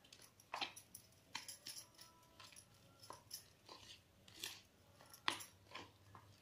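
Steel spoon stirring a thick, wet spice paste in a small bowl: faint, irregular scrapes and clicks as the spoon drags through the paste and knocks the bowl's sides.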